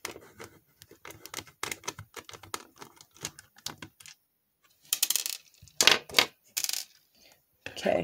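Plastic shell of an Xbox One controller being worked at with a small screwdriver and handled: many small clicks and taps, then a few short, louder scrapes about five to seven seconds in.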